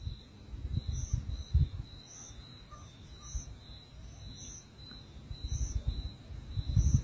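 Outdoor ambience of chirping wildlife: short high chirps repeating steadily, one kind several times a second and a higher one about once a second. An irregular low rumble runs underneath.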